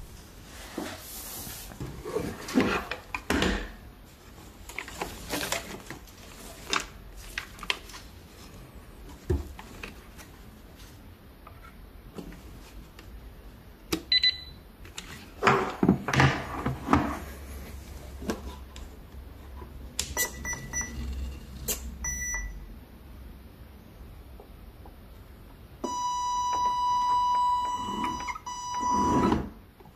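Workbench handling sounds of clicks and knocks, a few short electronic beeps, and near the end a loud, steady electronic tone held for about three and a half seconds.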